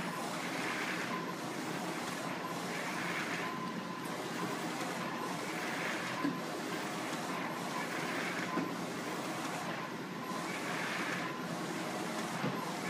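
Direct-to-garment printer running while it prints a T-shirt: a steady mechanical whir with a swelling whoosh about every two and a half seconds as the print head carriage sweeps back and forth.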